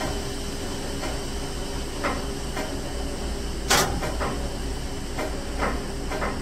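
Stopped freight train airing up its brakes, with brake-pipe pressure building toward brake release: a steady low rumble with a high hiss, scattered light ticks, and one sharp, short snap about three and a half seconds in.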